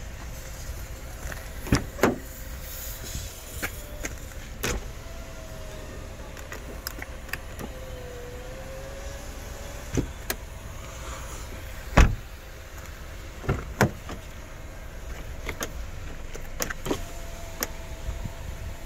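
Hyundai Avante sedan's electric power windows running in short spells, a faint wavering motor whine that starts and stops several times. Sharp clicks and knocks from the door come in between, the loudest about twelve seconds in.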